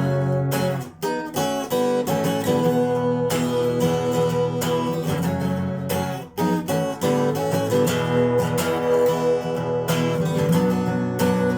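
Phill Pro acoustic guitar played in chords, many quick strokes with the strings ringing on between them, and brief gaps about a second in and about six seconds in.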